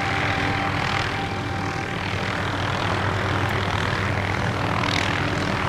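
Aircraft engine droning steadily, with a constant low hum under it; it cuts off abruptly.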